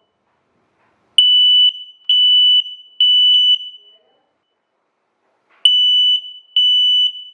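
WisuAlarm SA30A-R8 smoke alarm sounding its test alarm after its test button is pressed: loud, high-pitched beeps of about half a second each in the temporal-three pattern, three in a row, a pause, then the next group of three starting.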